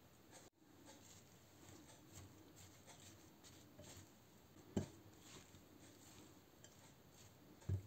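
Faint scraping and light clicks of a spatula stirring grated pumpkin and diced apple in a bowl, with two soft low knocks, one about five seconds in and one near the end.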